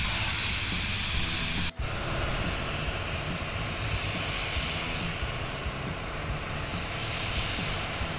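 Steady loud hiss of surfacer being spray-applied, which cuts off suddenly under two seconds in. After the cut, wind buffets the microphone with a low rumble.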